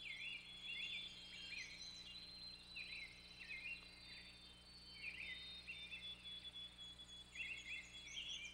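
Faint birdsong: short chirping phrases repeated every second or two, over a faint steady high insect-like drone.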